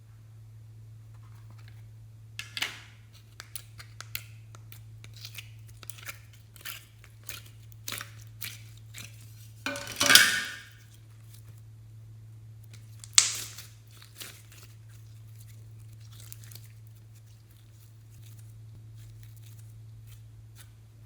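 Slime being worked by hand: a run of sticky crackles and small pops, then a louder squelching rush about ten seconds in and a sharp pop a few seconds later. A steady low hum runs underneath.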